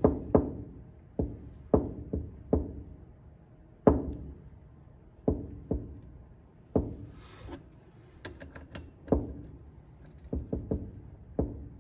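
Scattered sharp knocks and taps as the relief valve plug is fitted into a Kia/Hyundai 2.4 balance shaft oil pump assembly, with a quick run of small metallic clicks about eight seconds in.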